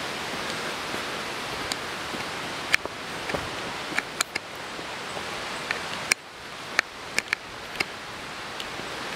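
Steady rushing noise that drops suddenly about six seconds in, with a dozen or so scattered sharp clicks and ticks.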